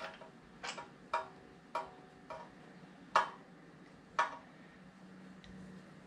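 A series of six sharp metallic clinks at uneven intervals, each with a brief ringing, from hand tools or parts being handled on the generator during maintenance.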